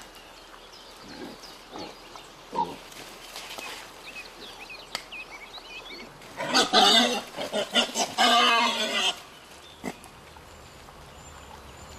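Animal calls: a few faint short calls in the first half, then a louder run of pitched calls lasting about three seconds, starting some six and a half seconds in.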